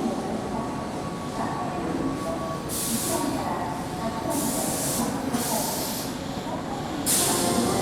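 Keihan electric train standing at the platform after arriving, with a low rumble and four short bursts of compressed-air hiss from its air brakes.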